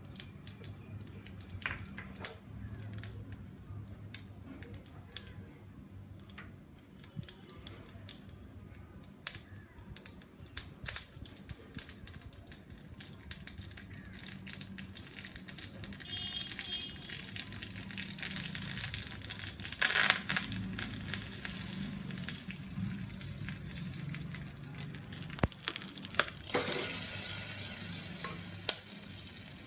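Mustard seeds and urad dal sizzling in hot oil in a small tempering pan, with scattered sharp pops. A louder burst of sizzling comes about two-thirds of the way in, and another near the end as the hot tempering is poured into the pachadi.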